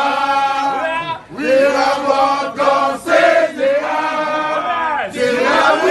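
A group of people chanting together, many voices held in several short phrases with brief breaks between them.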